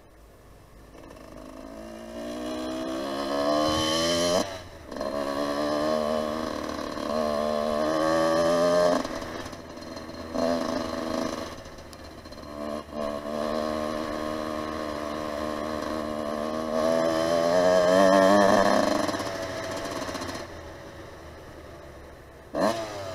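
Lifan 250 four-stroke pit bike engine accelerating hard. Its pitch climbs and then drops abruptly at each gear change, several times over. It then backs off to a low rumble, and there is one quick rev blip just before the end.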